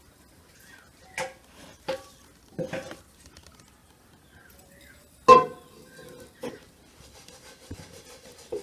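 Metal tablespoon clinking against glass jars and a plastic salt jar as salt is spooned onto pomegranate seeds for pickling. There are a handful of light clinks, and the loudest, about five seconds in, rings briefly.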